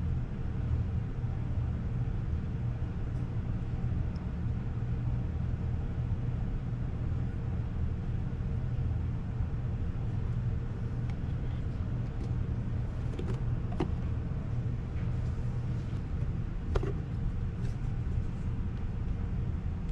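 A steady low mechanical hum, with a few light knocks about two-thirds of the way in.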